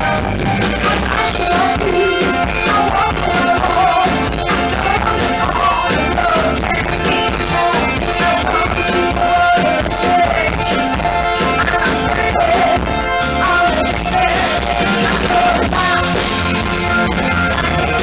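Live rock band playing: a woman singing over electric guitar and drums. The sound comes through a camera's built-in microphone in the crowd, so it is poor and dull.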